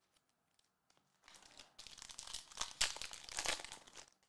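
Foil wrapper of a Topps Chrome Formula 1 trading-card pack being torn open and crinkled. It starts about a second in and is loudest near the end.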